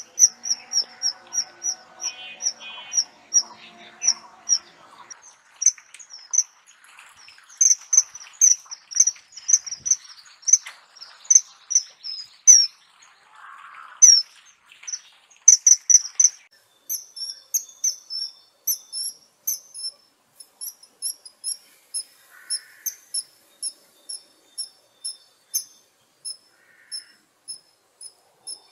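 Kingfisher calling: a long series of short, high notes, several a second, in quick runs broken by brief pauses, settling after about sixteen seconds into an even run of about two or three notes a second.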